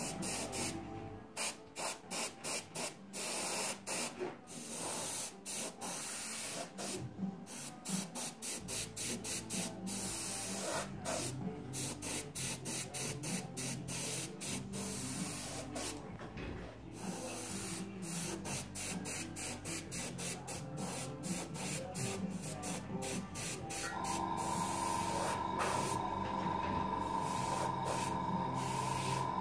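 Airbrush hissing as it sprays paint, the air cutting on and off in many short bursts as the trigger is pressed and released, then running steadier with fewer breaks near the end.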